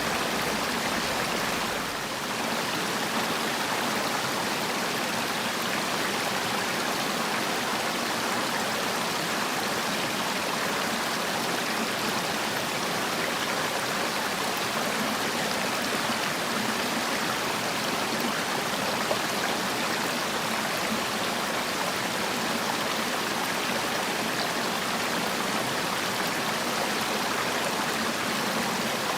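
Mountain valley stream flowing, a steady even rush of water, with a brief slight dip in loudness about two seconds in.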